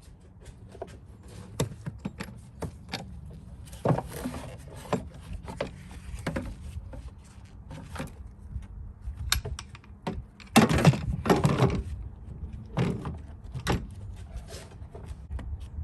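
Handling noise during hands-on work on a minivan: a run of scattered clicks, light clatters and thunks, with a louder burst of clattering about eleven seconds in.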